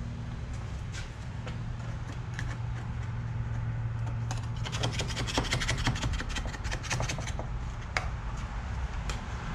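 Plastic scraper rubbing and scraping on a car's roof panel to pry off a dent-puller glue tab softened with glue remover. A quick run of scratchy strokes comes about halfway through, over a steady low hum.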